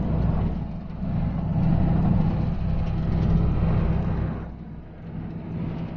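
Motor vehicle on the move: steady engine drone and road rumble, easing off briefly about four and a half seconds in.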